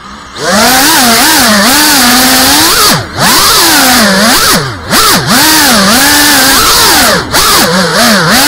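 FPV quadcopter's brushless motors and propellers whining loud from the onboard camera, the pitch swooping up and down constantly with throttle and dropping out briefly several times as the throttle is chopped. The quad is one the title calls unstable in its PID tune.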